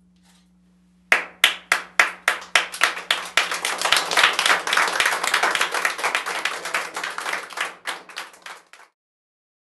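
Small audience applauding: a few separate claps about a second in quickly fill out into dense clapping, which thins out and stops near the end.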